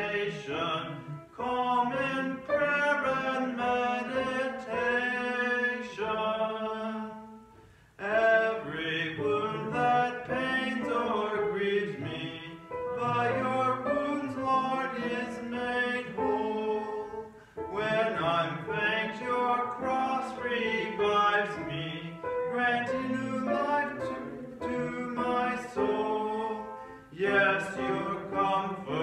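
A man singing a hymn from the hymnal in slow phrases of held notes, with short breaks between phrases.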